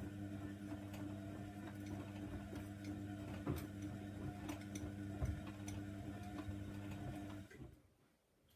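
Hoover Nextra washer-dryer running its wash, the drum motor humming steadily while the load tumbles with irregular clicks and taps. The motor stops about seven and a half seconds in, as the drum pauses between turns.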